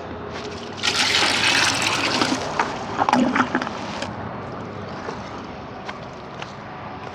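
Water gushing and splashing for about a second and a half, then gurgling and trickling as it dies down.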